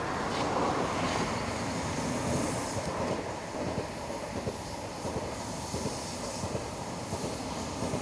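Passenger train running past on the tracks below, a steady noise of wheels on rail.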